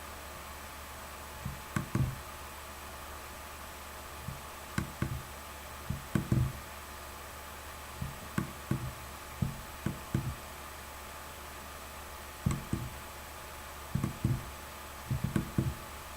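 Irregular soft knocks and thumps, singly and in small clusters of two to four, over a steady electrical hum.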